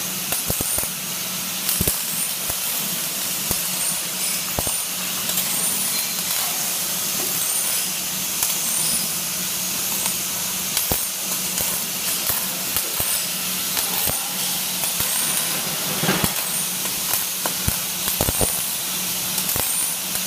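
Robotic arc welding on steel: a steady hissing and crackling with sharp spatter pops here and there, over a constant low hum from the welding machinery.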